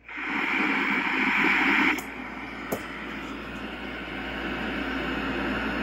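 Speaker of a 1978 Hitachi solid-state colour portable TV hissing with loud static as the set is switched on with no station tuned. The hiss drops sharply about two seconds in and continues more quietly, with a faint click shortly after.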